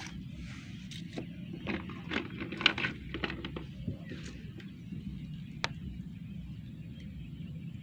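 Fishing tackle being handled: scattered light clicks and ticks, with one sharp click about five and a half seconds in, over a steady low rumble.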